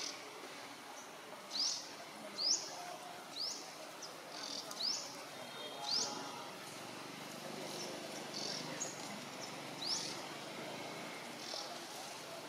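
A bird calling in short, high, upward-sweeping chirps, repeated irregularly every second or so, with the clearest ones in the first half.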